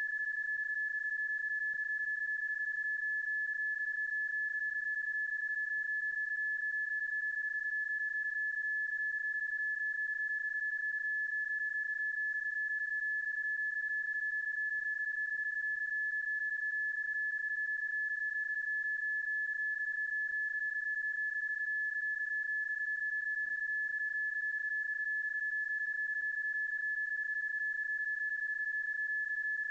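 PSK31 digital-mode tone: a single steady, pure high-pitched tone. It is a looped sound effect, not the actual signal of the contact, so it cannot be decoded.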